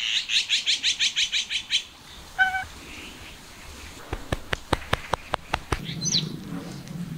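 A bird's rapid trill of about a dozen high notes over the first two seconds, later a single short high chirp. Between them a run of sharp clicks, and near the end the low steady purr of a calico cat being stroked.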